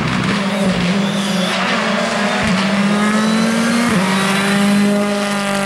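Ford Fiesta rally car's engine at high revs, accelerating as it comes close: the pitch climbs, drops sharply about two and a half seconds in as it changes gear, and climbs again. From about four seconds in it holds a steady high note.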